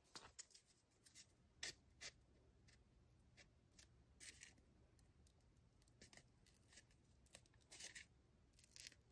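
Near silence broken by a few faint, brief scrapes and rustles of cardboard and wooden craft sticks being handled, as sticks are pushed into holes in the cardboard.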